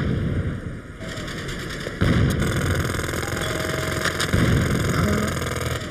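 A low rumble, loudest at the start and again from about two seconds in.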